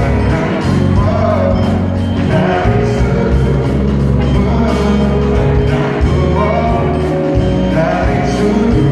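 Live pop band playing a song with singing over a steady bass line and an even drum beat.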